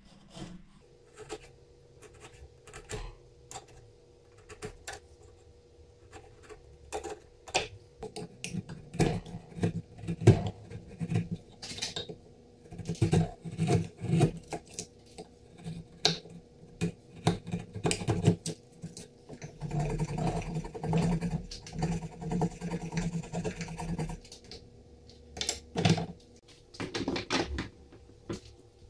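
Bench chisel cutting and paring the mortise in a quartersawn beech plane body: irregular sharp knocks and scrapes of steel on wood, growing busier from about eight seconds in, with a few seconds of dense scraping near the end.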